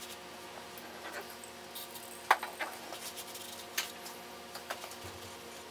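Small parts being handled at a workbench while a rag wipes dirt out of a motorcycle piston and cylinder: a few light clicks and taps, the sharpest about two and a half seconds in, over a faint steady hum.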